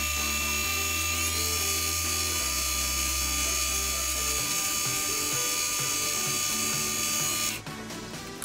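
Mini lathe spindle running with a steady high whine and hiss while abrasive cloth is held against a spinning brass bolt, cutting off abruptly near the end as the lathe stops. Background music with sustained bass notes plays throughout.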